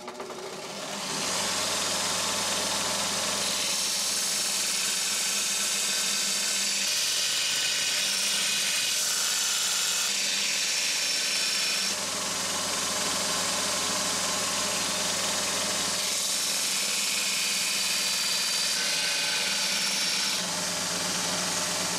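Belt grinder running, its abrasive belt grinding the edge of a steel fire axe head to sharpen it: a steady motor hum under a dense, hissing grind. It comes up to full level about a second in.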